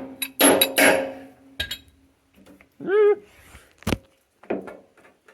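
Hand tools clinking and knocking against the metal of a tractor's loader cylinder and its fittings. There are several ringing metallic clinks in the first second and one sharp knock about four seconds in, with a short hum from the worker just before the knock.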